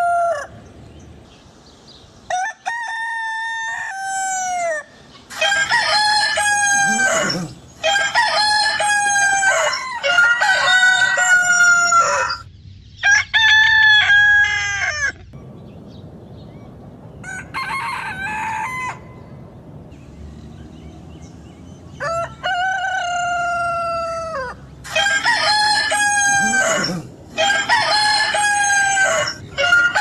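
Rooster crowing over and over: about ten cock-a-doodle-doo crows in a row, each a second or two long and dropping in pitch at the end, with some crows fainter than others.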